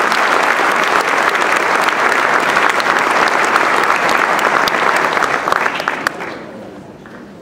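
Audience applauding: dense clapping from a large crowd in a hall, dying away about six seconds in.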